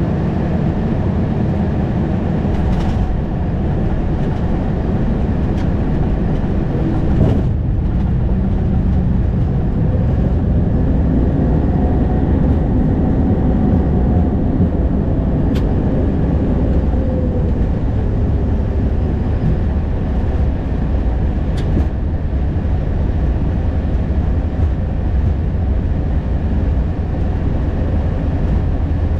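Steady low rumble of the Airbus A220 cockpit, the noise of the airframe and engines heard from the flight deck. Through the middle a faint tone rises and then falls in pitch, and a few sharp clicks stand out.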